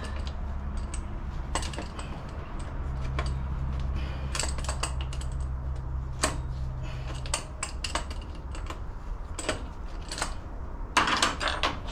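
Open-end wrench clicking and clinking irregularly against a power steering AN line fitting as the fitting is worked loose, with a louder burst of metal clatter near the end. A steady low hum lies underneath.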